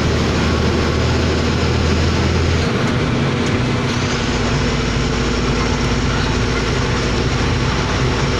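Truck engine running as it drives, heard inside the cab, over a steady hiss of tyres on the wet road. The engine note drops about three seconds in.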